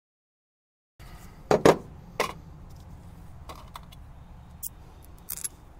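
After a second of dead silence, hand tools and small metal parts clink and knock on a pickup tailgate as they are picked up and set down: a few sharp knocks, the loudest about a second and a half in, then lighter clicks.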